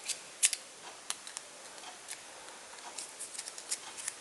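Small plastic and paper handling noises: light clicks and ticks as paper strips are fitted into a small yellow plastic toy frame, scattered through, with the sharpest click about half a second in and a quick run of them near the end.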